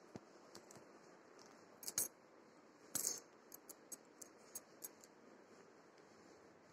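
Faint room tone with scattered light clicks and taps, a louder cluster about three seconds in followed by a run of about six quick ticks.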